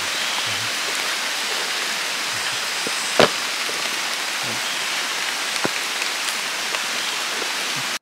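Steady rain falling on forest leaves, an even hiss, with a few sharp taps from drops, the loudest about three seconds in.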